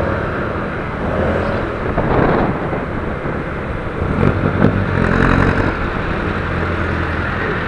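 Motorcycle engine running steadily under wind and road noise while riding in traffic, with nearby traffic briefly louder about four to five seconds in.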